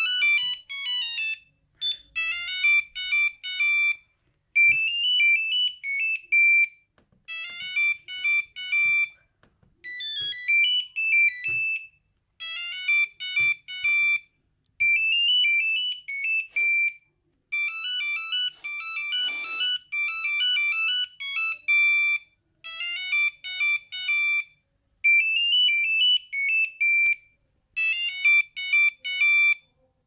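Nokia 6310 monophonic ringtone playing: a single-line melody of short, high beeps in phrases of a second or two, repeated with brief gaps between them.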